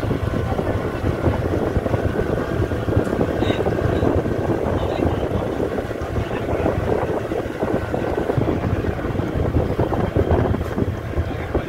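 Steady drone of a river tourist boat's engine while under way.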